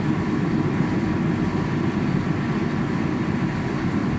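Endress diesel forced-air heater running at full burn: a steady rushing noise of its fan and burner flame, mostly low in pitch and even throughout. Its fuel pump pressure is set to 4 PSI, so the combustion cone glows red and the heater burns clean without smoking.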